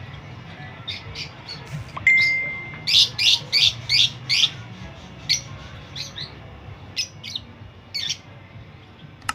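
Fischer's and masked lovebirds calling in a cage. A quick run of six sharp calls comes about three seconds in, with scattered single chirps before and after. Just before the run, a steady high whistle-like tone holds for under a second.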